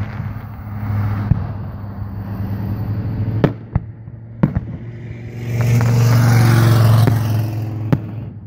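Fireworks shells bursting in several sharp bangs, a pair a few seconds in and another near the end, over the steady hum of a motor vehicle engine that swells louder for a couple of seconds past the middle.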